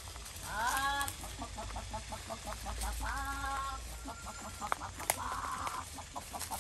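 Brown hens clucking in quick, short repeated notes, with two longer drawn-out squawks, one about half a second in and one about three seconds in. A brief rustle comes just after five seconds.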